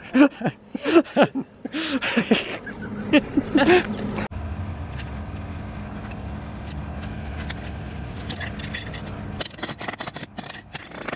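Laughter and voices for about four seconds, then a steady low outdoor rumble, and near the end a quick run of clicking and rattling as the stainless turning-block hardware is handled.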